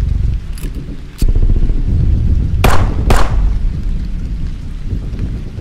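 Battlefield sound effects: a heavy low rumble of distant shellfire, a sharp click about a second in, then two loud sharp cracks about half a second apart near the middle.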